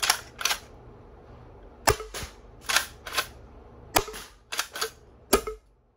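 Homemade 3D-printed high-pressure-air foam dart blaster with a Cosmic Nomad HPA core and MJ-VO3 air valve firing several sharp shots in quick, uneven succession until it runs out of darts. The firing parts are working well.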